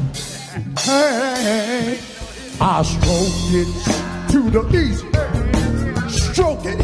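Live blues band playing: drum kit, bass and electric guitars, with a pitched lead line bending and wavering over the top.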